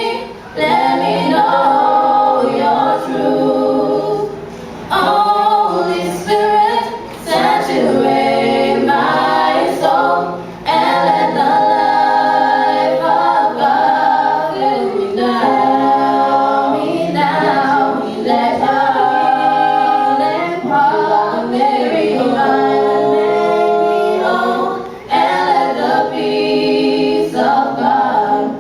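A cappella choir singing in harmony without instruments, in phrases broken by short breaths.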